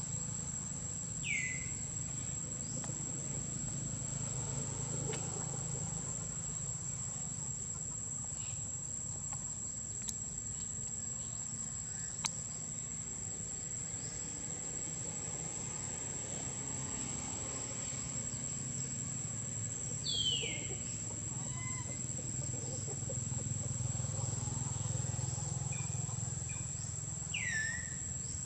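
Steady, high-pitched insect drone, with three short squeaks that fall in pitch: one about a second in, one about two-thirds through and one near the end.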